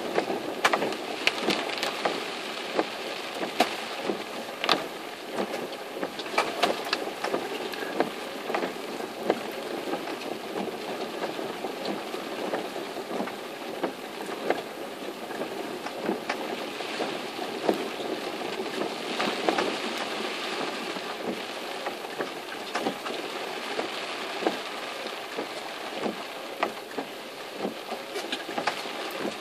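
Heavy typhoon rain hitting a moving car's roof and windshield, heard from inside the car: a steady wash of rain and wet-road noise with many sharp drop strikes.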